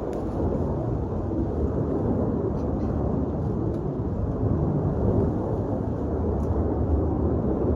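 Steady low rumbling noise outdoors, with a few faint clicks.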